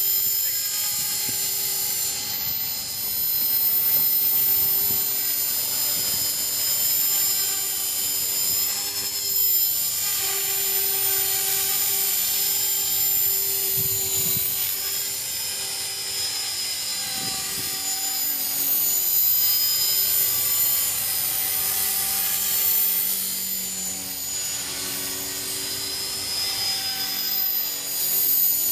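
Align T-Rex 450 Pro electric RC helicopter in flight: a high-pitched whine from its electric motor and gears, with the rotor sound over it, drifting up and down in pitch as it manoeuvres.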